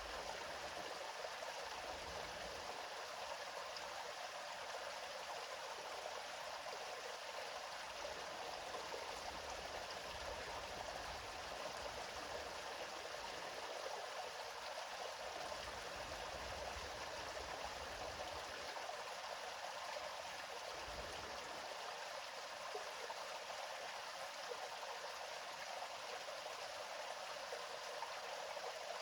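Gentle river flow: a steady, even rush of running water with no breaks or splashes.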